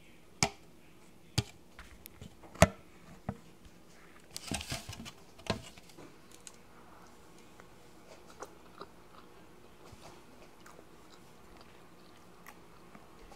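A person biting into and chewing a sandwich close to the microphone, with several sharp clicks and knocks in the first six seconds, the loudest a little under three seconds in, then quieter chewing.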